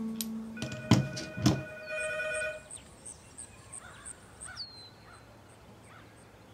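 A landline telephone rings once, a short trilling ring about two seconds in, after two sharp knocks. Faint bird chirps follow.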